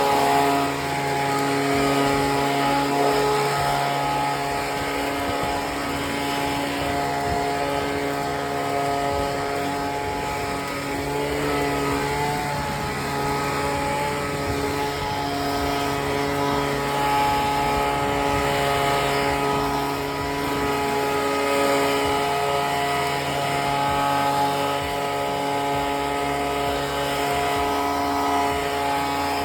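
Small gasoline engine of a blower running steadily at high speed, with a constant droning pitch.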